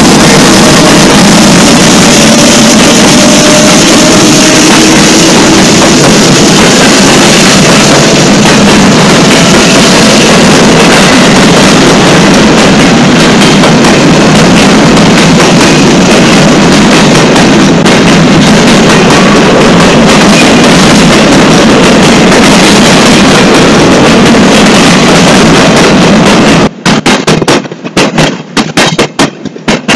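Empty intermodal well cars of a freight train rolling past close by: a loud, constant roar so strong it overloads and distorts the recording. About three seconds before the end the roar breaks up into rapid, choppy bursts.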